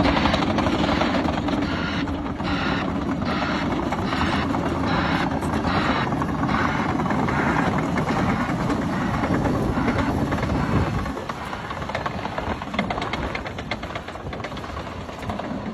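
Caterpillar D7 crawler dozer working a load of topsoil: the diesel engine runs hard under load over a rhythmic clank of the steel tracks, pulsing about one and a half times a second. About eleven seconds in, the deep engine rumble drops off as the load eases.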